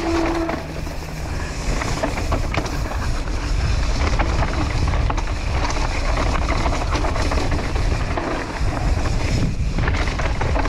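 Wind rushing over the ride camera's microphone and mountain-bike tyres rolling fast over dirt and loose gravel on a downhill run, with frequent clicks and knocks from the bike over bumps.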